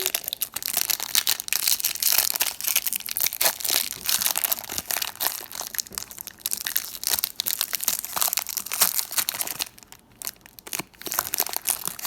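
Crinkling and tearing of a trading card pack's wrapper being opened: a dense run of small crackles, with a short lull about ten seconds in.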